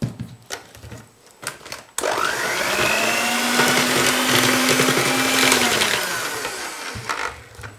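A few light knocks, then an electric hand mixer switches on about two seconds in, its motor whine rising and holding steady as the beaters whisk a liquid egg-yolk batter, then winding down and stopping about a second before the end.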